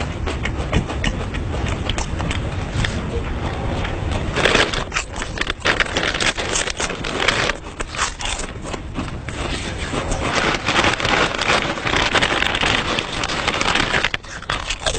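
Someone eating noisily: dense crunching and crackling chewing sounds, which start about four and a half seconds in and come thick and fast over a low rumble.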